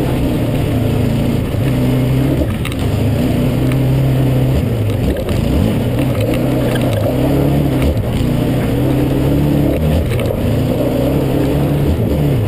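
Yamaha Raptor 700 ATV's single-cylinder four-stroke engine running hard under throttle, its pitch rising and falling as it is ridden over sand, with a couple of brief throttle lifts. It is heard from a helmet-mounted camera.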